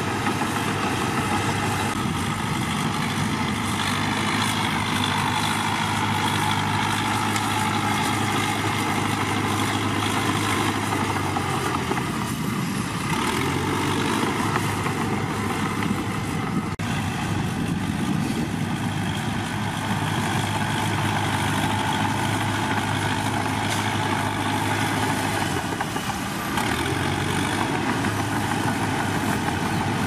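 Caterpillar D3K crawler bulldozer's diesel engine running steadily under working load as it shoves soil, its note dipping and changing briefly about halfway through and again near the end.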